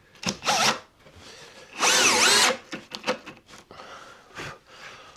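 Power drill driving a screw into a plywood cabinet divider: a short burst about half a second in, then a longer run of about a second near the two-second mark, the motor pitch wavering up and down.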